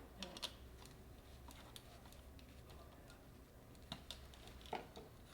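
Faint, scattered clicks and taps of small hand work, over a faint low hum: wires being fitted to the terminals of a garage door opener's wall-control panel.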